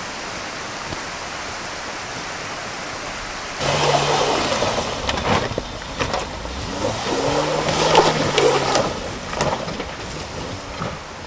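Steady rushing noise, then, about three and a half seconds in, a small hatchback's engine revs up and down as the car crawls over loose rocks. Stones crunch and knock under the tyres until near the end.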